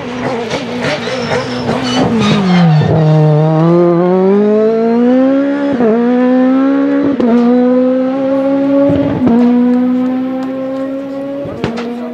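Peugeot 306 Maxi rally kit car's 2.0-litre XU10J4RS four-cylinder at high revs. The revs fall with a rapid crackling from the exhaust, then rise as the car accelerates, broken by about four brief dips, each with a sharp crack.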